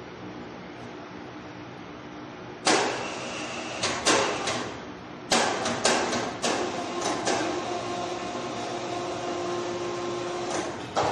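A steady shop hum, then from a few seconds in a run of sharp metal clanks and knocks from an overhead electric hoist and its slings handling a giant off-the-road tyre, with a steady whine from the hoist motor in the middle of the run.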